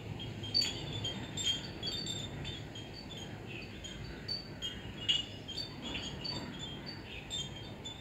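Pottery wind chimes tinkling irregularly as they swing, with scattered light clinks and short, high ringing notes, some bunched close together.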